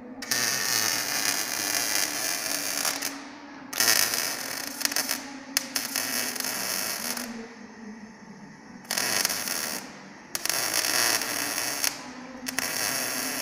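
Welding arc from a Stahlwerk MIG-TIG Digital 200 welder crackling in six short runs of one to three seconds, stopping briefly between them, with a steady low hum in the gaps.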